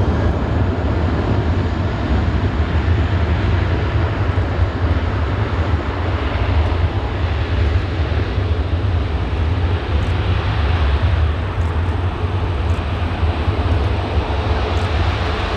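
Airbus A380-841's four Rolls-Royce Trent 900 turbofans running steadily at taxi power as the airliner turns onto the runway: a loud, deep rumble with a broad hiss over it.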